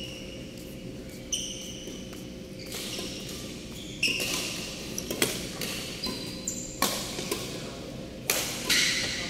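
Badminton rally: rackets hitting a shuttlecock back and forth, about six sharp hits spaced a second or more apart, with brief high squeaks of shoes on the court floor between them.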